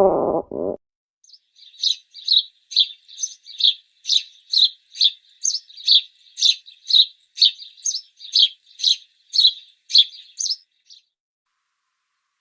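A small bird chirping over and over, about two short, sharp chirps a second, for roughly ten seconds. In the first second, the tail of a lower, pitched animal call dies away.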